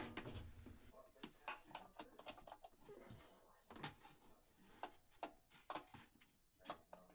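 Faint scattered knocks, clicks and rubbing as plastic washing-machine hoses are handled and pushed in under a kitchen cabinet.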